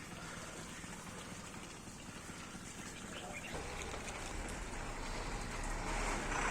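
Outdoor ambience with faint bird calls; about halfway through, a low rumble comes in and grows louder.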